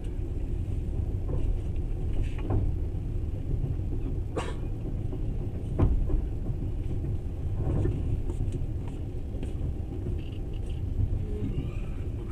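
Passenger train running, heard inside the carriage: a steady low noise of wheels on rails, with a few separate knocks and clacks at uneven intervals.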